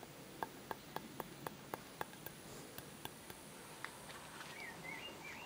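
A quick run of about eight faint clicks, some four a second, during the first two seconds or so, then a few scattered ones. Near the end a bird chirps a few short notes.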